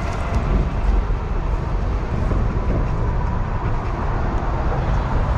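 Wind buffeting the microphone outdoors: a steady, fairly loud low rumble that flutters unevenly.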